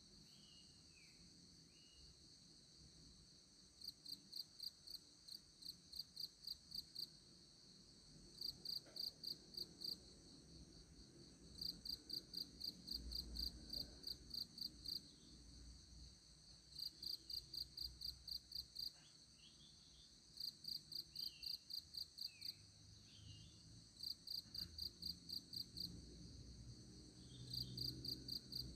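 Insects chirping: runs of evenly spaced high chirps, about three a second, lasting a few seconds each and starting again after short pauses, over a steady high-pitched insect hum.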